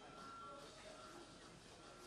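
Near silence: faint ambient noise with distant, indistinct voices.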